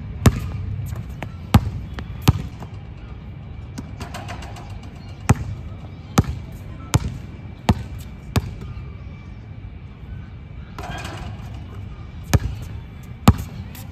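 Basketball bouncing on a hard court as one player dribbles and shoots: single sharp bounces at uneven intervals, a run of about one a second in the middle, a pause of a few seconds, then two more near the end.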